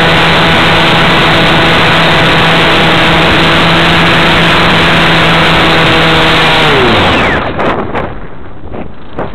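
Radio-controlled model aircraft's motor and propeller, heard from the onboard camera, running at steady high throttle over a loud rush of air. About seven seconds in the pitch falls away as the throttle is cut, leaving wind buffeting the microphone.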